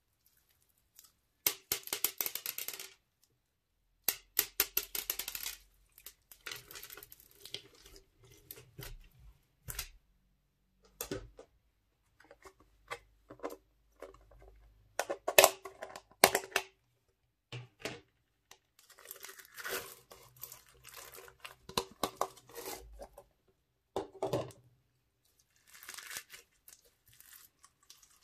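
Crunchy slime packed with plastic and foam beads being squeezed and stretched by hand: bursts of crackling, popping and clicking, with short pauses between handfuls.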